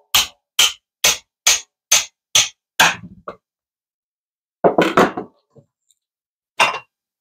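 A hammer striking the spine of a kitchen knife about twice a second, driving the blade down through a small Seminole pumpkin on a wooden cutting board; the blows stop about three seconds in as the pumpkin splits. A clatter follows a couple of seconds later, then a single knock near the end.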